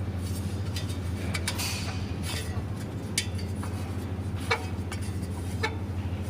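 Electric motor fan running with a steady low hum, while its cover gives irregular sharp clinks and rattles: the abnormal noise from the fan and cover.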